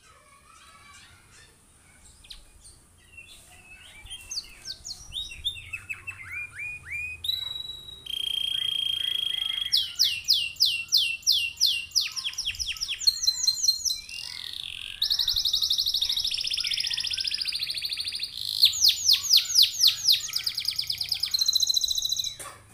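Domestic canary singing a long song: soft scattered notes at first, then rapid repeated down-slurred notes, a held whistle, and fast trills including a long rolling trill, stopping abruptly near the end.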